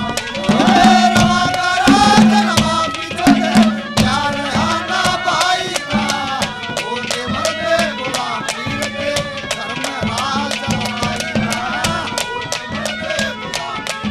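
Instrumental interlude of Haryanvi ragni folk music: a melody with gliding notes over a steady low drone and a fast, even hand-drum beat.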